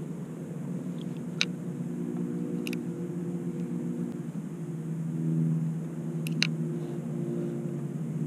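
Steady drone of a boat engine on the water, swelling a little about five seconds in. A few short, sharp clicks, twice close together, sound over it.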